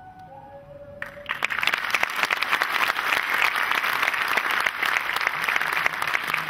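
The last held note of flute music ends, and about a second in an audience breaks into sustained applause.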